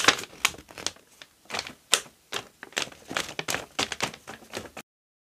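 Paper page edges being dabbed over and over into wet ink on a craft surface: a quick, irregular run of taps and paper rustling that cuts off abruptly near the end.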